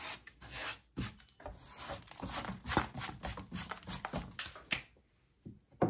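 Irregular rustling and scraping of hands working loose potting substrate in and around a small pot. The noise dies down near the end, with one last short knock.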